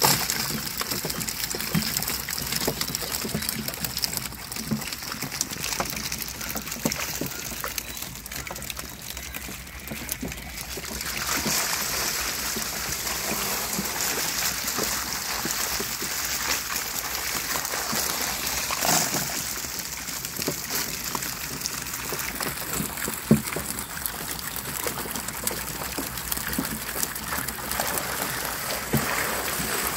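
Water splashing and trickling as fish are scooped out of a trap with a hand net and tipped onto a tray, with many small wet slaps and clicks.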